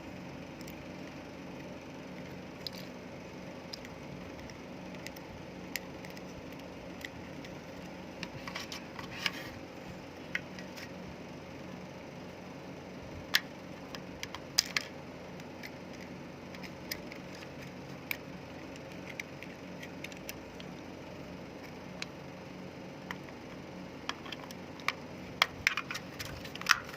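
Scattered light clicks and taps of small hard objects being handled, over a steady low hum.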